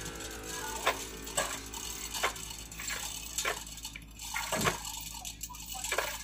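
Rigging hoist lifting a hanging line-array speaker: sharp metallic ratchet clicks, irregular, about one or two a second.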